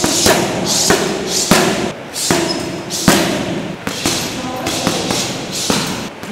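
Boxing gloves striking a teardrop-shaped hanging heavy bag: a run of thuds at an uneven pace, sometimes two or three in quick succession.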